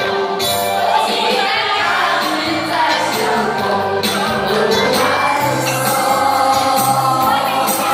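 Choir singing a Chinese song, holding long sung notes.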